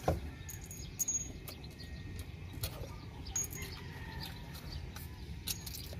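Scattered small metallic clicks and taps as aircraft wheel-brake parts are handled, over a steady low wind rumble, with a few short high bird chirps.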